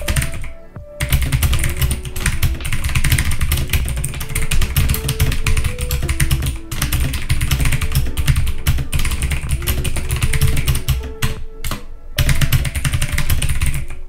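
Fast touch-typing on a DREVO Gramr 84-key mechanical keyboard with clicky MX Blue-style switches: a rapid, continuous clatter of key clicks. It starts about a second in, with a brief pause about halfway through and another short break near the end.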